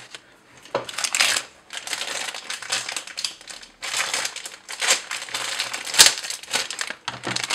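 Clear plastic bag of model-kit sprues crinkling and rustling as it is handled and opened, in irregular bursts, with one sharp click about six seconds in.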